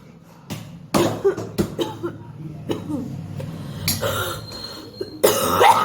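A woman coughing and clearing her throat in a run of short, harsh coughs, hawking to bring up phlegm. The loudest and longest cough comes near the end.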